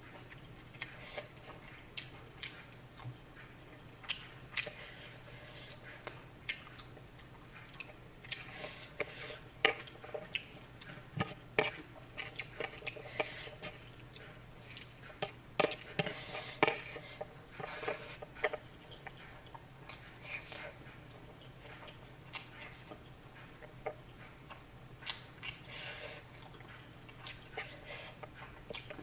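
Dishes and metal utensils clinking and scraping in irregular short knocks, over a steady low hum.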